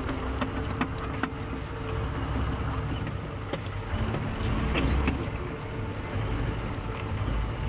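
Soviet T-34-85 tank's V12 diesel engine running steadily as the tank drives slowly closer, with a few faint clicks over it.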